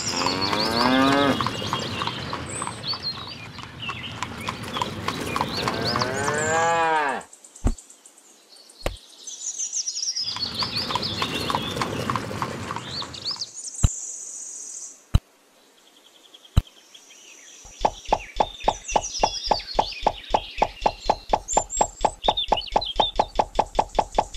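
Cattle mooing in two long calls, with birds chirping high above them. Then a few single sharp clicks, and over the last six seconds a rapid, even knocking.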